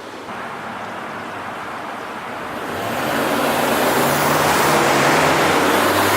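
A car approaching and drawing close, its engine and tyre noise swelling from about two and a half seconds in and staying loud to the end.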